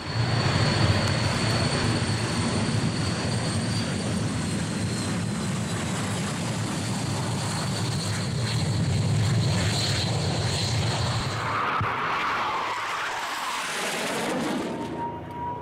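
Jet aircraft engine noise from a low pass: a loud, steady rumble with a thin high whine that slowly falls in pitch. It eases off near the end as a steady higher tone comes in.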